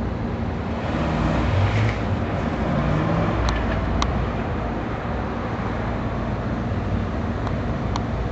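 C6 Corvette's V8 driven hard through an autocross course, the engine note rising and falling as it accelerates and slows between the cones. A few faint sharp clicks sound about halfway through and again near the end.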